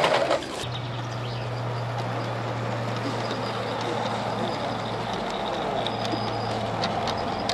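16 mm scale live-steam garden railway train running past, a steady hiss and rumble. A louder burst of it dies away in the first half second.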